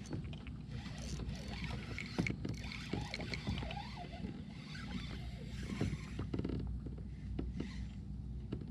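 Scattered knocks and clicks of gear being handled in a small fishing boat over a steady low rumble, with a bird chirping briefly around the middle.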